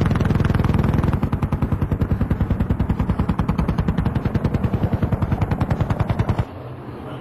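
A machine gun firing one long continuous burst of rapid, evenly spaced shots that cuts off suddenly near the end.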